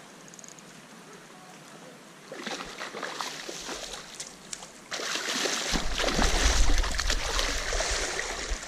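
A hooked steelhead thrashing and splashing at the river surface as it is played close and brought to the net, over the steady hiss of flowing water. The splashing starts a couple of seconds in and grows much louder about five seconds in, with a deep rumble under it in the last few seconds.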